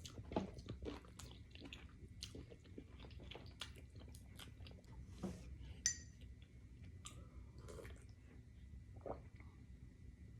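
A person chewing food, faint wet mouth sounds with many small irregular clicks.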